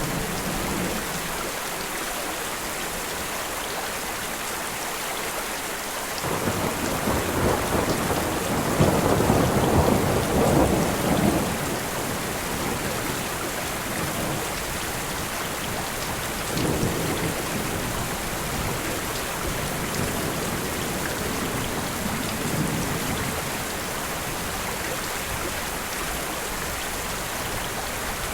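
Steady rain with a long roll of thunder that builds about a fifth of the way in and fades out, followed past the middle by a second, weaker rumble.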